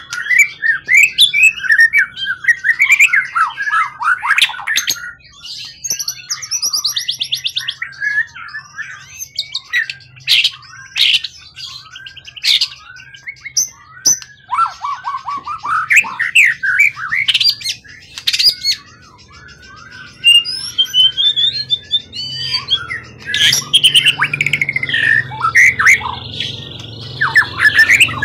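Songbird singing a loud, continuous, varied song of quick chirps, whistled sweeps and trills, with a buzzy rattle about eight seconds in.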